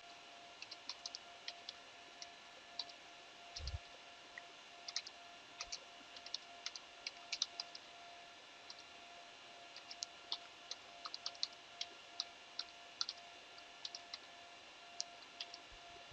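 Typing on a computer keyboard: irregular runs of keystroke clicks over a faint steady hum, with one low thump about four seconds in.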